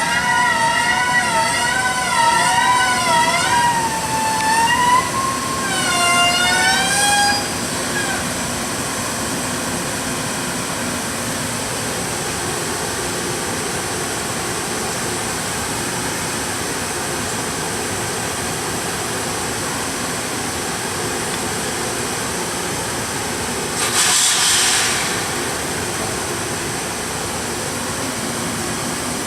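Brakes of a Metro-North M-1 electric railcar squealing in a wavering, warbling tone as the train slows to a stop, the squeal dying away about seven seconds in. A steady running noise follows, with a short burst of hiss about 24 seconds in.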